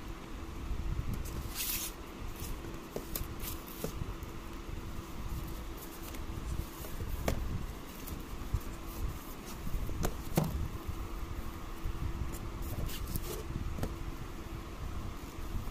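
Fingers handling and rubbing a cardboard product box, prying at its lid, with a few sharp taps and clicks against the card, over a steady faint hum.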